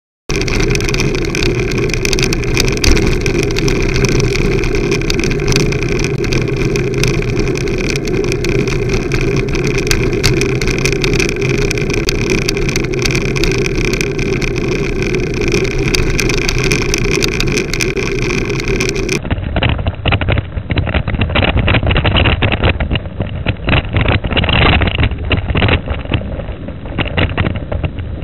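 Steady wind and road noise on a handlebar-mounted camera's microphone as a bicycle rides along a tarmac road. About two-thirds of the way through the sound turns duller and comes in irregular gusts of wind buffeting the microphone.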